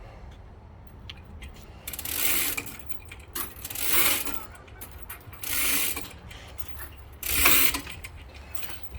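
A hand-worked ratchet on the log-handling gear being pumped in strokes: five short ratcheting bursts, each under a second, about a second and a half apart.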